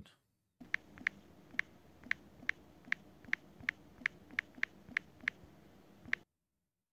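Typing a password on an Android phone's touchscreen keyboard: about fourteen short, sharp key-press clicks at an uneven pace, one per character.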